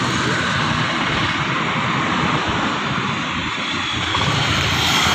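Motor vehicle running while riding, with a steady rush of wind and road noise buffeting the microphone.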